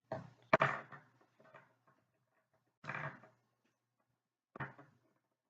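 Handling noise from curling hair with a flat iron: a sharp click about half a second in, the loudest sound, with brief rustling around it, then two shorter rustling bursts about three seconds and nearly five seconds in.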